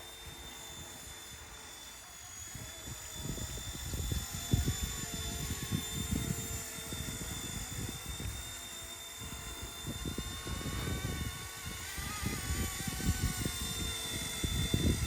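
RC Era C189 MD500 remote-control helicopter in flight, its motor and rotors giving a steady high whine that shifts in pitch around two-thirds of the way through. Wind gusts buffet the microphone throughout.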